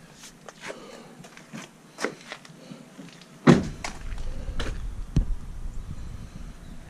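Light clicks and knocks, then a single loud thunk about halfway through, like a pickup truck door being shut. After it comes a low rumble of wind on the microphone, with a couple more knocks.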